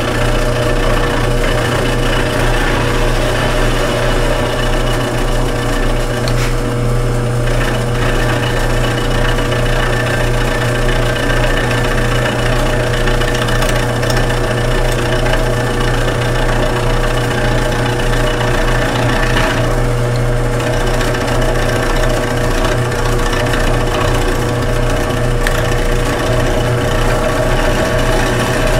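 Milling machine running a 5/8-inch end mill across the face of a cast-iron radiator bottom tank: a steady motor hum with a constant tone over the rapid rattling chatter of the cutter. The cutter is working into a hard spot in the casting.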